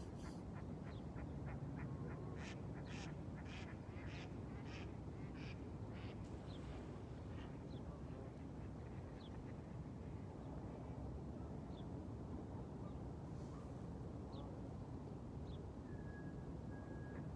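Ducks quacking at a pond: a run of short quacks over the first several seconds, quick at first and then about two a second, over a steady low outdoor rumble. Near the end a thin steady tone comes in.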